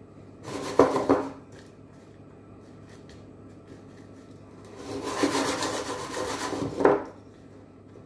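Crushed almonds rattling and scraping against a bowl as a ball of cookie dough is rolled through them, in two spells: a short one about half a second in and a longer one from about five to seven seconds.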